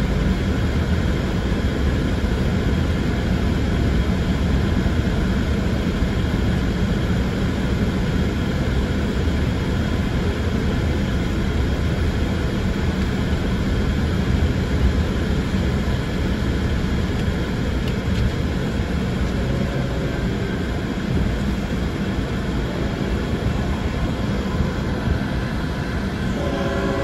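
Road and engine noise inside a moving car's cabin, a steady rumble that eases slightly as the car slows toward a rail crossing. In the last second a diesel locomotive's horn starts to sound.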